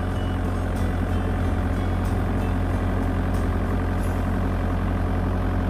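Kubota excavator's diesel engine idling steadily just after being started.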